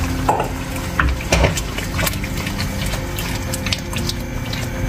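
Thick tomato masala sizzling in a nonstick wok as a spatula stirs it, with many small crackles and pops scattered throughout.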